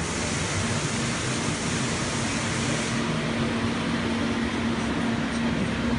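A machine-mounted fume extraction unit running: a steady fan whoosh over an even motor hum, with a brighter hiss for the first three seconds or so.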